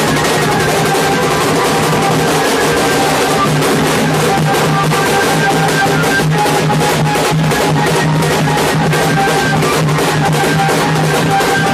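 A street drum group playing waist-slung drums with sticks in a fast, continuous beat. A broken high melody line runs over the drumming.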